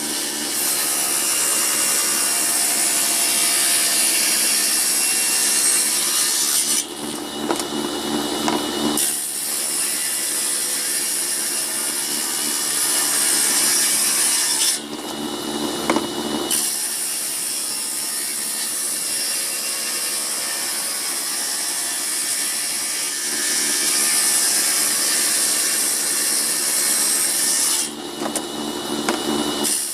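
Table saw ripping old wood: a steady cutting noise, broken three times by short spells where the blade spins without cutting.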